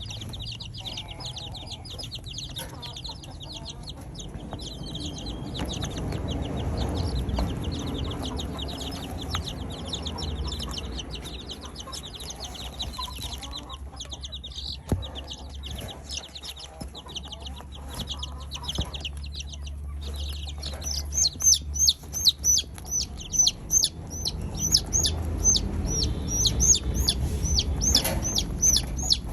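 Chickens clucking and chirping: a rapid, steady run of high chirps over a low rumble, pausing midway and coming back louder about two-thirds through.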